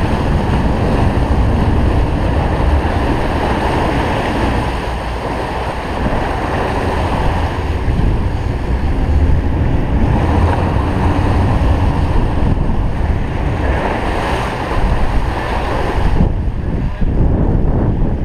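Wind buffeting the microphone over the steady rush of churned water beside a sportfishing boat, with the boat's engine running underneath.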